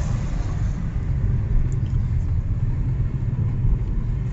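Steady low rumble of a car driving through city traffic, heard from inside the cabin.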